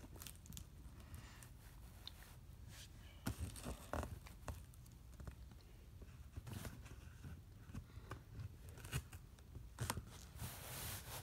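Scissors and a taped cardboard box being worked at: scattered clicks and scrapes, with a longer tearing scrape near the end, as the packing tape is attacked.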